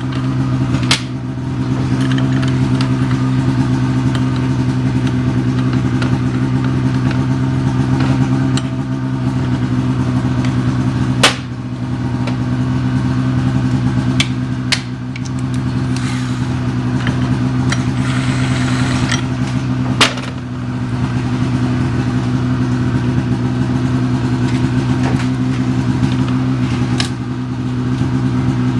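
A steady low machine hum with a few sharp metallic clicks and knocks from tools and parts being handled during clutch-arm installation, and a brief hiss a little past the middle.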